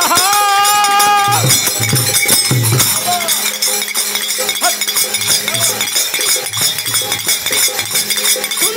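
A man's held sung note ends about a second in. After it comes bhajan accompaniment: dholak drum strokes under fast, steady jingling and clacking from kartal clappers.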